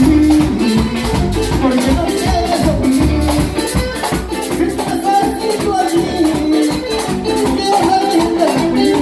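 A live Latin band playing: guitars and bass over a two-headed drum played on the lap, with a steady shaker-like rattle on every beat.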